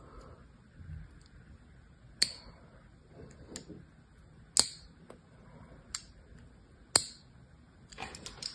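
A thin craft-knife blade scoring lines into a dry bar of soap: a series of crisp scraping clicks a second or two apart, with a quicker run of small clicks near the end.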